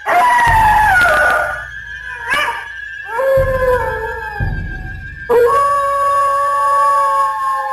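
A dog howling: a run of long, slightly falling howls, the last one held for more than two seconds, over a steady high-pitched tone.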